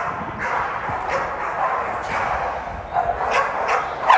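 American pit bull terriers barking and yipping repeatedly, with a run of short, sharp barks near the end.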